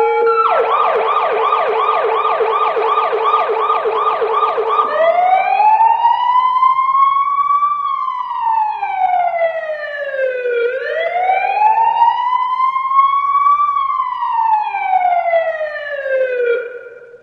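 Electronic police car siren in a fast yelp, about three sweeps a second. About five seconds in it switches to a slow wail with two long rising and falling cycles, then fades out near the end.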